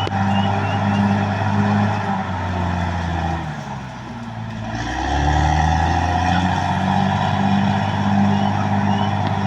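Caterpillar D6R XL bulldozer's diesel engine running. Its pitch and loudness sag about three to four seconds in, then climb back up.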